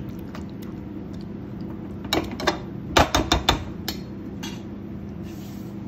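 Metal spoon stirring thick mutton curry in a metal kadai, knocking and scraping against the pan in a quick cluster of clicks about two to four seconds in, over a low steady hum.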